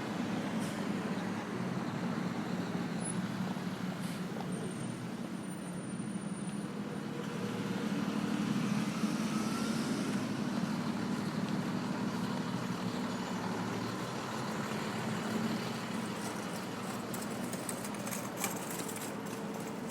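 Street traffic: vehicle engines running with a steady low hum, growing louder for a few seconds about eight seconds in.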